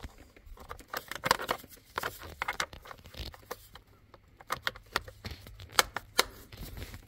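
Plastic steering-column trim cover being pressed into place by gloved hands: scattered plastic clicks and glove rustling, with a few sharp snaps, the loudest about a second in and again near six seconds.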